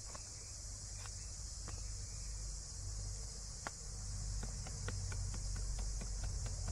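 Steady, high insect chorus, with a kitchen knife clicking as it cuts through raw jackfruit; a few scattered clicks at first, then quicker, several a second, from a little past halfway.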